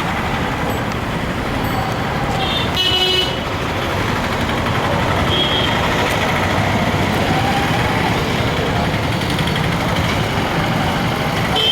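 Road traffic running steadily, with short vehicle horn toots about two and a half seconds in, near five and a half seconds, and again at the end.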